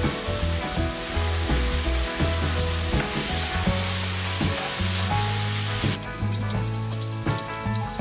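Chicken and aubergine pieces sizzling in a non-stick wok over a gas flame while being stirred and turned with a spatula, with short scraping strokes. The sizzling hiss drops off abruptly about six seconds in.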